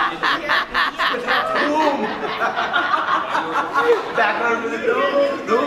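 A group of people laughing and chattering, with a quick run of laughter in the first second or so.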